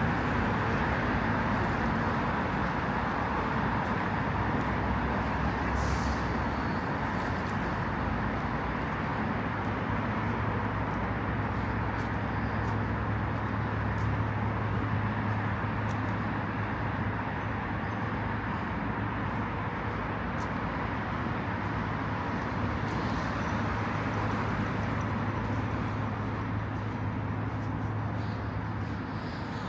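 City street traffic: a steady wash of car engines and tyres passing on the road.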